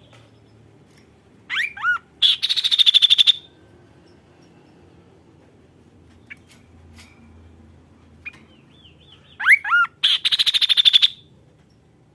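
A kaso-kaso bird singing two loud song phrases: each opens with a few falling whistled notes and breaks into a rapid buzzy trill about a second long. The first comes early; the second, which repeats it, comes near the end. Faint chirps fall between them.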